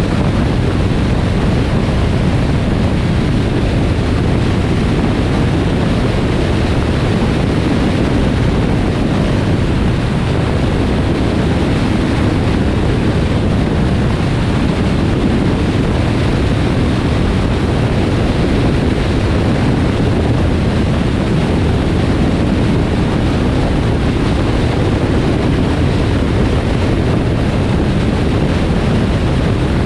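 Steady rush of tyre and wind noise from a car cruising on a highway, even throughout with no pitched engine note standing out.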